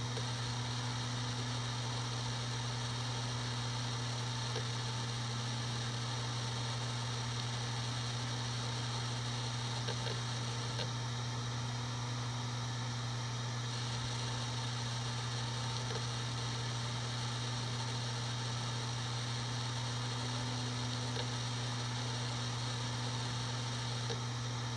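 Seagate Barracuda 7200.10 hard drive spinning at 7200 rpm, a steady low hum with hiss and no clicks or grinding.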